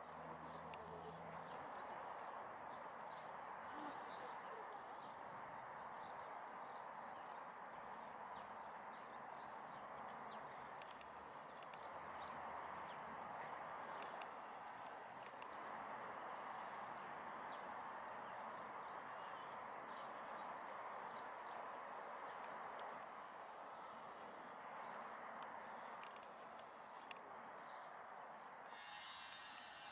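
Small birds chirping many times in short, high calls over a faint, steady outdoor rush.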